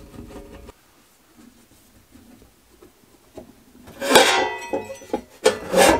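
Faint scraping and clicking of a screwdriver taking screws out. From about four seconds in comes loud clattering and ringing as the thin sheet-metal cover of an Astron RS-20A power supply is lifted off its chassis.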